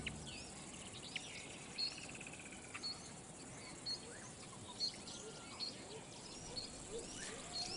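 Faint natural bird chorus over low background hiss: short high chirps repeating roughly once a second, mixed with scattered whistled calls that rise and fall.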